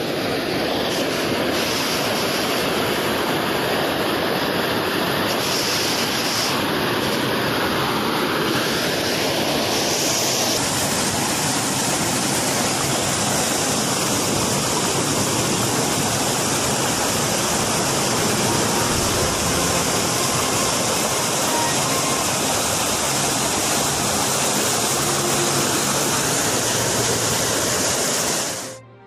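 Water pouring through the gaps of a small concrete weir in a canal and churning into whitewater below, a loud, steady rushing. It cuts off suddenly near the end.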